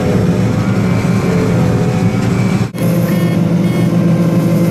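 Combine harvester running at working speed: a steady, loud drone of engine and threshing machinery, broken once by a brief gap a little past halfway.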